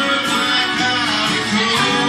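Live band playing, with strummed guitars prominent in the mix.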